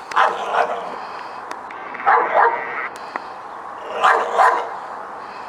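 A dog barking: three pairs of quick barks, about two seconds apart.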